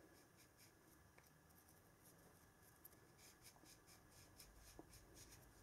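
Near silence, with faint light ticking and rustling from fingers handling a small brass banana plug, the ticks coming thicker in the second half.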